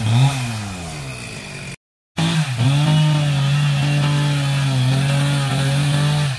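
Stihl MS 381 chainsaw blipped up and down at the throttle, then held at a steady high pitch as it cuts into a large banyan log. The sound breaks off briefly about two seconds in.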